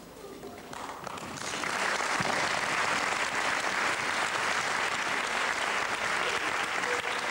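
Audience applauding. The clapping starts about a second in, swells quickly, then holds steady.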